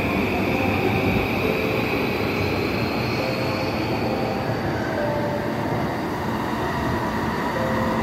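Yamanote Line electric train moving out along the platform, its wheels running on the rails and its motors giving a slowly rising whine as it picks up speed. Under the train, soft electronic chime notes of a station guide chime for blind passengers recur throughout.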